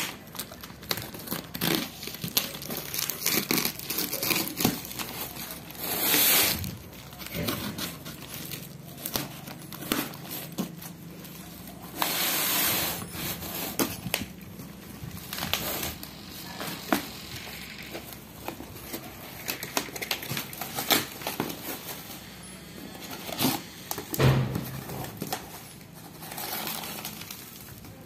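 Packing tape and corrugated cardboard being cut with a box cutter and torn open by hand: scraping cuts, crackling tape and tearing cardboard, with two longer rips about 6 and 12 seconds in.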